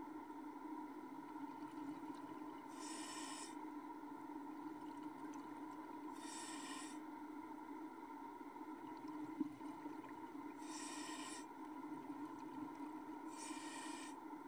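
Underwater recording: a steady low hum, with four short bursts of hiss at uneven gaps of three to four seconds, like a scuba diver exhaling bubbles through a regulator.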